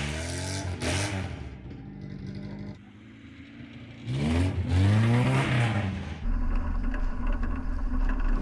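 Lada sedan's four-cylinder engine through an oversized cannon-style exhaust pipe, revving up and dropping back twice, once at the start and again around four to six seconds in, then settling into a steady low rumble near the end.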